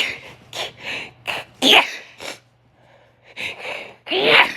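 A woman in a sneezing fit: a quick string of sharp breaths and sneezes. The loudest sneezes come about a second and a half in and again near the end, after a short lull.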